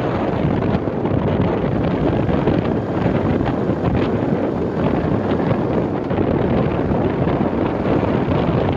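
Steady wind rushing over the microphone, mixed with the rumble of a vehicle driving along a paved road.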